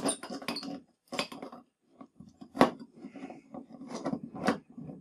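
An adjustable wrench and pliers clinking and scraping on the brass compression nuts of a copper-pipe tee fitting as the nuts are tightened against each other: a run of irregular metallic clicks and knocks, the sharpest about two and a half seconds in and again near the end.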